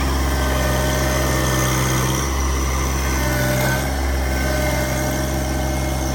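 An engine running steadily at a low, even pitch, shifting slightly a couple of times.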